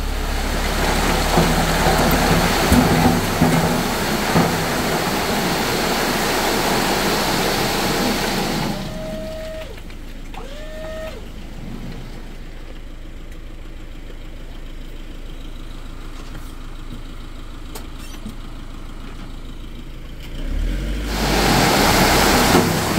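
Iveco Daily tipper's engine revved to drive the hydraulic tipping pump as the bed lifts and gravel slides out of it. About nine seconds in it drops to a low idle, with two short rising squeaks, then revs up again near the end as the bed lifts further.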